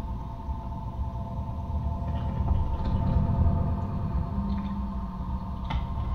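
Sound-art playback of field recordings of work machinery, mixed through speakers: a steady low rumble under several humming tones, with a few sharp clicks, the clearest near the end.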